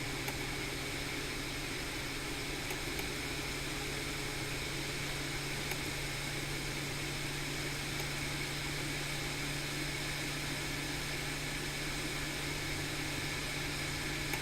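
Hot air rework station blowing steadily, a constant fan hiss with a low hum, as the chip's solder is heated to reflow.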